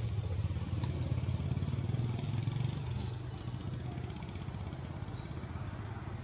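A motor engine running steadily with a low, pulsing hum, with faint high chirps over it.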